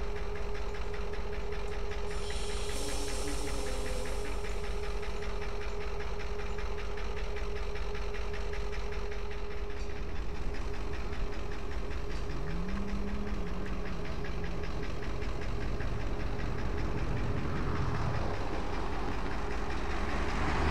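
Diesel locomotive engines running with a steady low rumble and a constant hum as two coupled locomotives move slowly along the track, with a short hiss about two seconds in.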